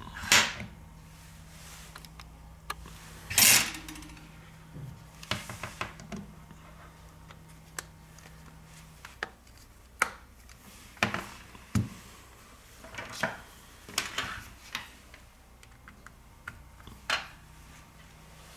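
Scattered clicks, taps and short scraping rustles of a smartphone and small repair tools being handled on a workbench, with a faint steady hum that stops about nine seconds in.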